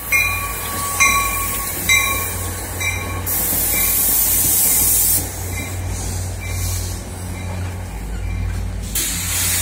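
Metro-North commuter train moving past close by, with a steady low rumble of cars and wheels. A bell strikes about once a second for the first three seconds, and a loud hiss rises over the rumble from about three to five seconds in.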